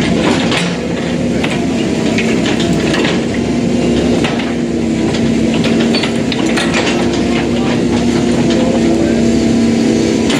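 Excavator's diesel engine running steadily under load, with scattered metallic clanks and knocks.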